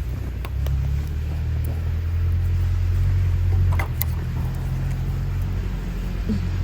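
Steady low rumble of a car being driven, heard from inside the cabin, with a few faint clicks.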